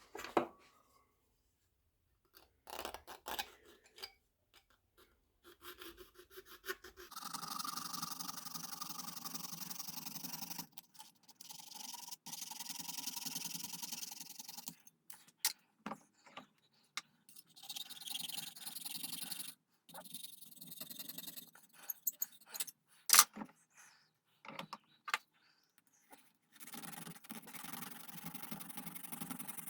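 Thin horn plate being cut by hand in bursts of fast scraping strokes a few seconds long, with pauses between them and a few sharp knocks and clicks, the loudest a little past the middle.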